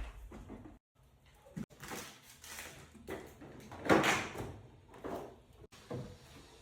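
Metal tool chest drawers sliding open and shut several times, the loudest slide about four seconds in, with some sounds cut off suddenly.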